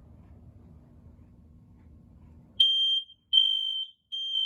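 Smoke alarm going off about two and a half seconds in, set off by aerosol test smoke: a shrill, high-pitched piezo tone sounding in repeated beeps about half a second long with short gaps. Before it only a faint low hum is heard.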